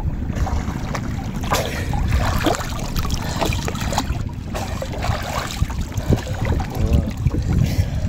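Water splashing and sloshing around a person wading chest-deep, starting about a second and a half in, over a steady low rumble of wind on the microphone.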